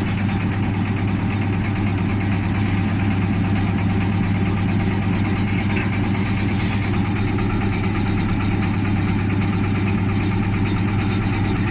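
Bread-loaf slicing machine running, its electric motor giving a steady, even hum.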